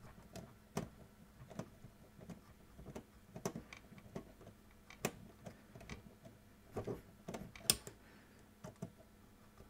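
A 3/16 nut driver backing small bolts out of the front of a GM Delco car radio's sheet-metal chassis: irregular light clicks and taps of metal on metal, a few louder knocks among them.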